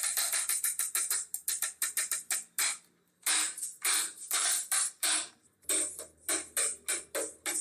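Instrumental music with fast, sharp percussive hits over a low sustained bass note, briefly dropping out about three seconds in.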